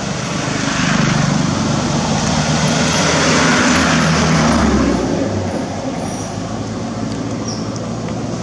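A motor vehicle's engine passing close by: it grows louder in the first second, stays loud until about two-thirds of the way through, then drops back to a steady traffic hum.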